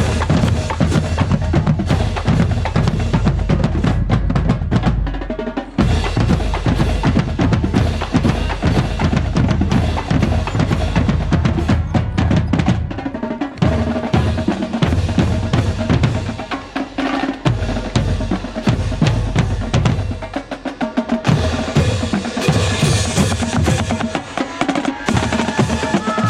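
High school marching band drumline playing a cadence, with snare and bass drums beating steadily.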